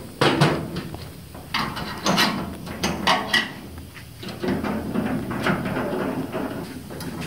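Metal clicks and knocks of a steel door hinge, a screwdriver and a car door as the door is worked onto its hinge: several sharp knocks in the first three and a half seconds, one with a brief metallic ring, then softer scraping and rubbing.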